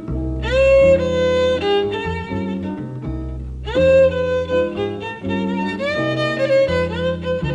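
Jazz violin playing a melody, sliding up into long notes about half a second in and again about three and a half seconds in, over guitar chords and a walking bass. It is a live concert recording played back from cassette tape.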